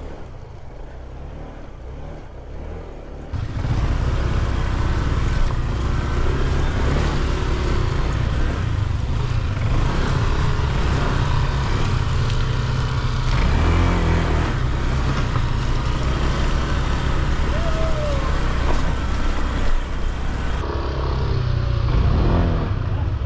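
Motor scooter being ridden along a rough dirt trail, its engine running under a steady rushing noise; the sound jumps suddenly much louder about three and a half seconds in and stays loud.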